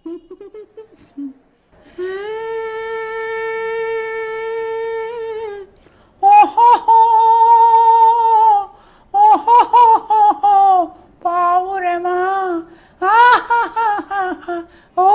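A single high-pitched voice singing without clear words. It holds one long steady note, then a second long note, then sings short phrases whose pitch wavers and turns.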